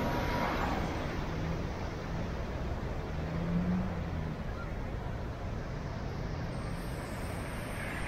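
Heavy surf breaking and washing over shoreline rocks: a steady rushing roar of waves and churning foam with a deep low rumble underneath.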